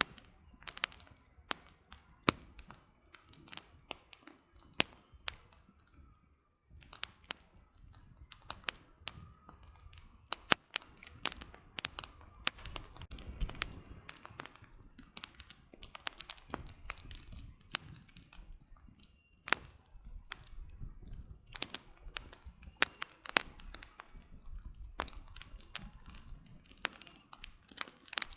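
Wood campfire burning, the firewood crackling and popping in a dense, irregular run of sharp snaps over a faint low rumble of flame.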